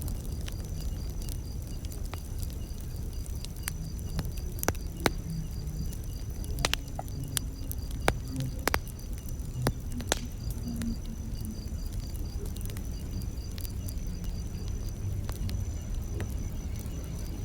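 Campfire burning with a low steady rumble and sharp crackles and pops, most of them in the middle stretch. Crickets chirp steadily throughout.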